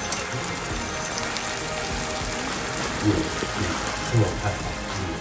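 Steady crackling hiss of food cooking on the stove, under background music.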